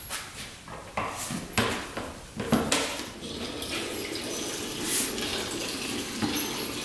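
Two-stroke premix fuel pouring from a red plastic gas can into a dirt bike's plastic fuel tank, a steady gurgling pour from about three seconds in. Before it come a few clicks and knocks as the can's spout is handled and set into the filler.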